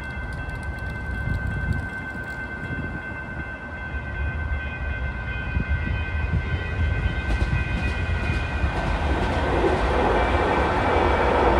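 Sacramento RT light rail train approaching and running through a road crossing. Its rail and running noise swells sharply from about eight seconds in and is loudest near the end. A steady high-pitched whine of several tones holds throughout.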